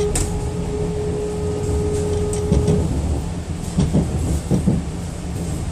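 DB class 426 electric multiple unit running, with low rumbling and scattered clicks and knocks. A steady whining tone stops about halfway through.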